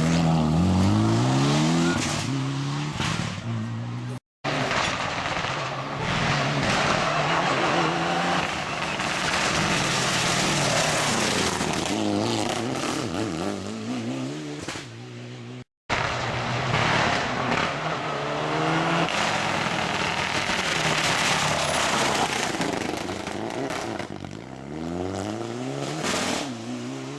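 Rally cars driven hard past the roadside, engines revving up through the gears with rising and falling pitch as each car approaches and goes by. The sound breaks off abruptly twice, about 4 seconds and 16 seconds in, and a new pass starts each time.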